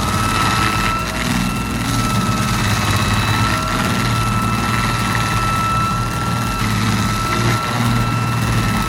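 Heavy forestry machine's engine running steadily, with a constant high whine over the low engine sound.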